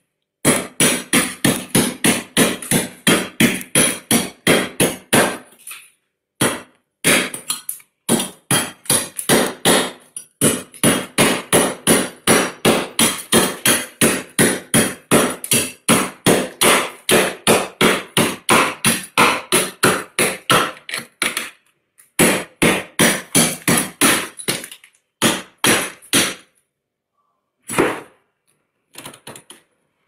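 Metal spoon scraping and chipping into thick freezer frost: rapid crunchy strokes, about three a second, in runs with a few short pauses.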